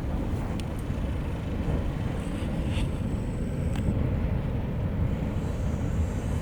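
Boiling lava lake of Marum crater on Ambrym, heard from the crater rim about 500 m above it: a deep, steady rumble.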